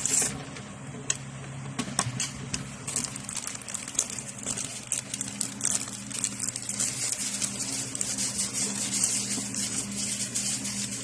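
Crackling and rustling of packaging being handled and opened, with irregular crackles that thicken in the second half, over a steady low hum.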